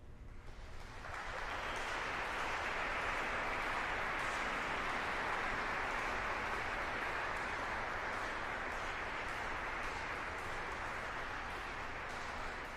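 Audience applause at the end of an organ performance. It swells in about a second in, carries on steadily, and begins to die away near the end.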